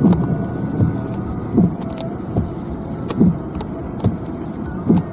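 Steady low rumble of a vehicle, with a short falling sweep that repeats about every second and a half and a few scattered clicks.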